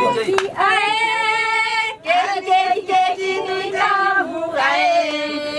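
A woman's voice singing long held notes that waver in pitch, over a steadier lower note.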